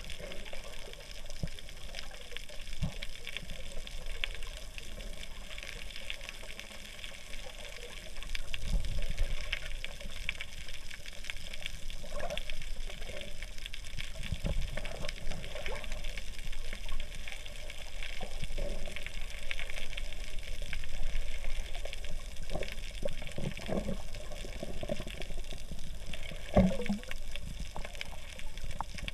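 Underwater water noise heard through a submerged camera: a steady fizzing crackle with low, muffled surges of moving water and scattered soft knocks.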